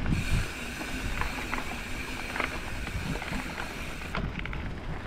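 Mountain bike coasting on a dirt trail: a steady freewheel buzz with tyre and frame rattles and scattered knocks. The buzz cuts off suddenly about four seconds in.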